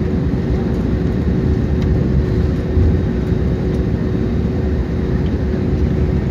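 Steady low rumble of an airliner heard inside the cabin, with a faint steady hum above it.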